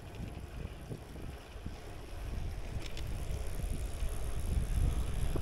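Wind rumbling on the microphone of a bicycle being ridden along, a low steady noise that grows gradually louder.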